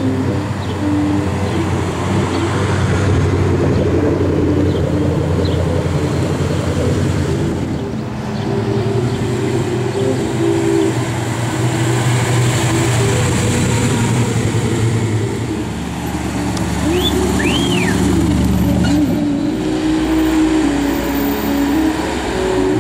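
Car engines running as cars drive slowly past one after another, with steady low engine notes that shift as each car goes by.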